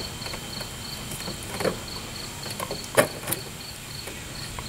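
A few short knocks and clicks from handling a 12-volt microwave oven and its power cord, the loudest about three seconds in. Under them an insect chirps in a steady, regular rhythm.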